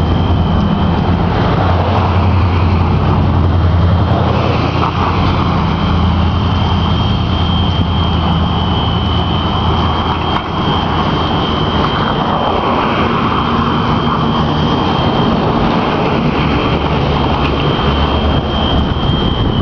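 A continuous high-pitched alarm tone of the kind usually used as a fire alarm, holding one pitch without a break, over a loud low rumble of street traffic.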